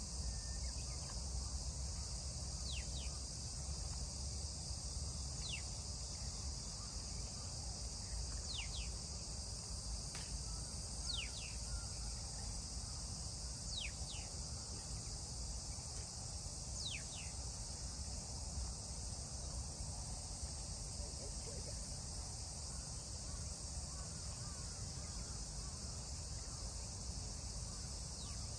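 Steady insect chorus, crickets, with short falling chirps every second or few through the first half or so, over a low rumble.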